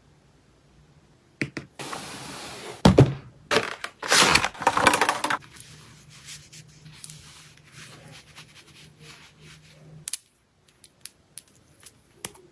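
Packaging being torn open and handled: loud ripping and crinkling in several bursts over the first few seconds, then quieter rustling and a few sharp clicks.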